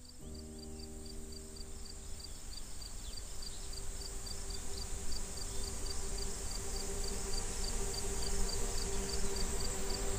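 Crickets chirping in a steady rhythm, about three chirps a second, over a high insect hiss, with soft sustained music tones fading in and growing louder beneath them.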